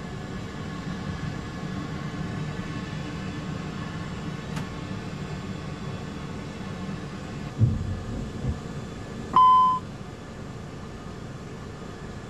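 A steady low rumble, with two dull thumps about seven and a half and eight and a half seconds in. About nine seconds in comes a single short chime from the Airbus A320's master caution alert, signalling an engine failure.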